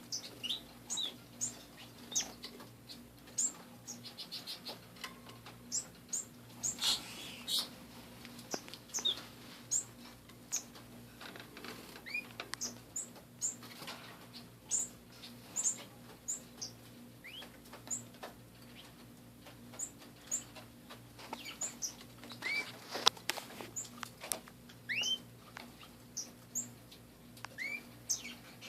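Domestic canaries in an aviary giving scattered short, high chirps and a few rising call notes, with bursts of wing fluttering, loudest about a quarter of the way in and again a little past three-quarters of the way through.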